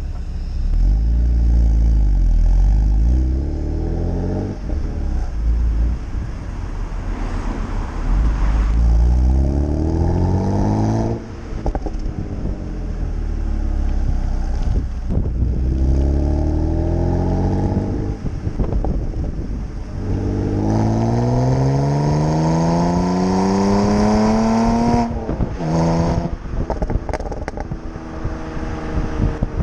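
BMW E92 325i's N52B25 2.5-litre straight-six, heard through a BMW Performance rear silencer, pulling hard several times: the exhaust note climbs with each pull and then drops sharply. The longest pull climbs steadily for about four seconds in the second half. Brief crackles come as the throttle closes.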